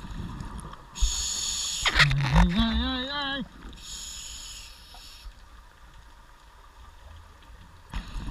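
Scuba diver breathing through a regulator underwater, with two rushing hisses of breath and bubbles about three seconds apart. Between them comes a short muffled, wavering hum voiced through the mouthpiece.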